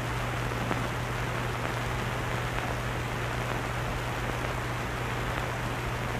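Steady hiss with a constant low hum and a few faint crackles: the background noise of an old film soundtrack.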